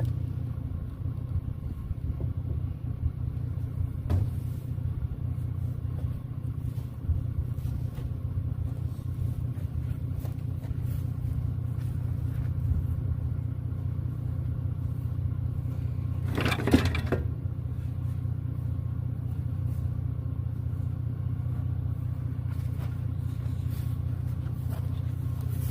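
A vehicle engine idling steadily with a low hum, with a few faint clicks and a short scraping burst about two-thirds of the way through.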